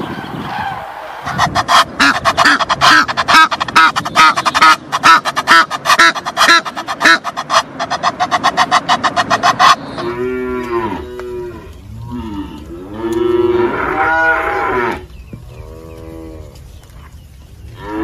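A flock of common cranes calling, with many loud trumpeting calls overlapping several times a second, which stop abruptly after about eight seconds. Then cattle mooing, with three long moos followed by another starting at the end.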